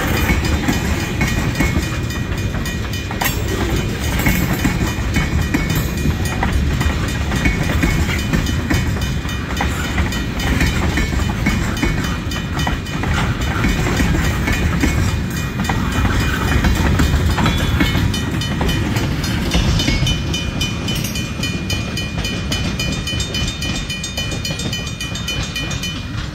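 Freight train of tank cars rolling past, its wheels rumbling steadily on the rails as the cars go by.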